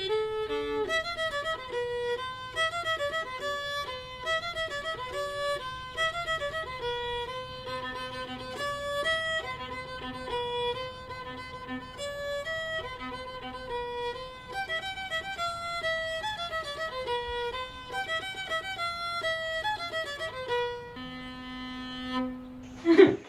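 A fiddle playing a fast tune of quick, changing notes, ending on one long held low note near the end.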